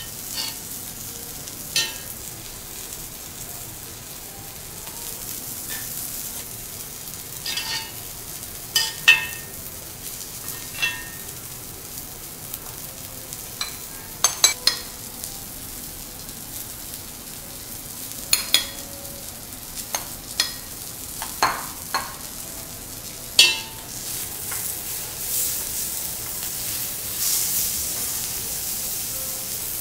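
Steady sizzle from a teppanyaki griddle, with about a dozen sharp, ringing clinks of a metal spoon and ladle against a cast-iron pot and serving bowls as rice is stirred and served. In the last few seconds the sizzle grows louder as fish and herbs sear on the griddle.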